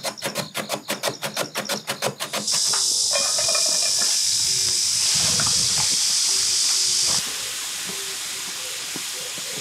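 Carrot being julienned on a mandoline slicer: quick, evenly spaced scraping strokes, about five or six a second. About two and a half seconds in, julienned carrot strips hit a hot frying pan with a sudden loud sizzle, which drops to a softer steady sizzle a little after seven seconds in.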